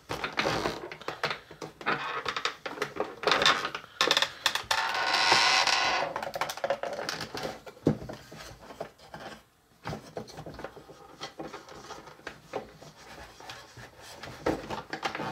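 Hard plastic parts of a Play-Doh Burger Builder toy extruder clicking, knocking and scraping as they are handled and the press lever is worked, with a longer scraping rub about five seconds in.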